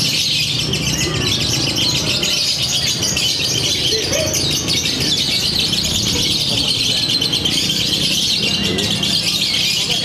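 Fischer's lovebird in a long, unbroken run of ngekek, the rapid, continuous chattering song that lovebird contests judge. The song goes on without a break, over a low murmur of voices.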